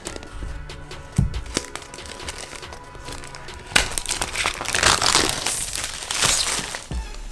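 Packaging of an Apple Magic Keyboard box crinkling and rustling as it is opened, loudest for about three seconds starting about four seconds in, with a knock about a second in, over soft background music.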